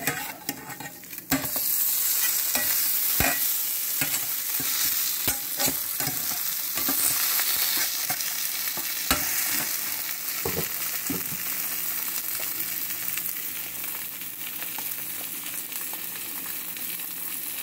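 A butter-fried tuna melt sandwich sizzling steadily in a metal frying pan as the cheese melts, with a slotted metal spatula scraping and tapping against the pan now and then, mostly in the first half.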